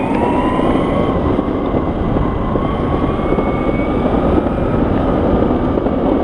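Enertion Raptor electric skateboard running along pavement: the electric drive whines, rising slowly in pitch as the board gathers speed, over a steady rumble of wheels rolling on the path.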